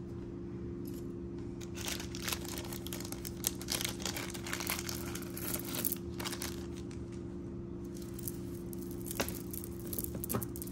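Plastic bag crinkling and rustling in irregular bursts as a beaded necklace is pulled out of it, over a steady low hum.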